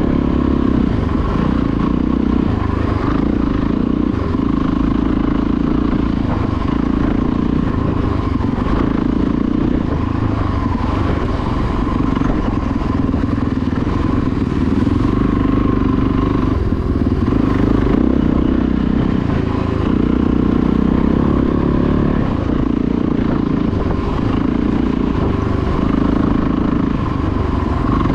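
Dirt bike engine running while being ridden, its note rising and falling with the throttle.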